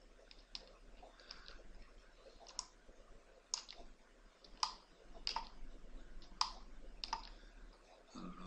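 Computer mouse button clicking: sharp single clicks at uneven intervals, about one a second, fairly quiet.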